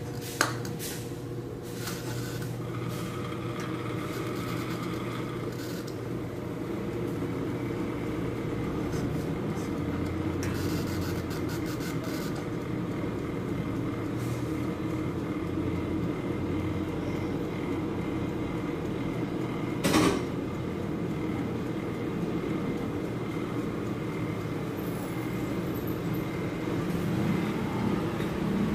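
A steady mechanical hum runs throughout, with a click just after the start and one sharp knock about twenty seconds in.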